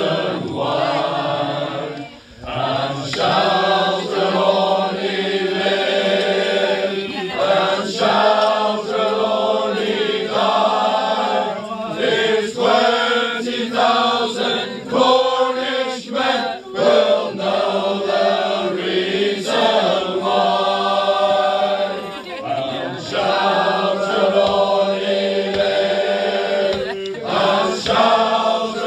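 Small male choir singing unaccompanied in harmony, several men's voices holding sung phrases together, with a brief break between phrases about two seconds in.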